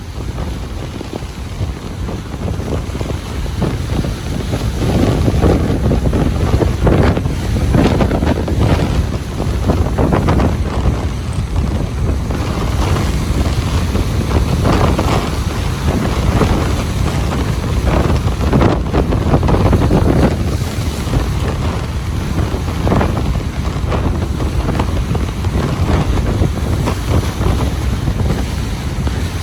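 Ocean waves washing and breaking on a beach, with wind rumbling on the microphone.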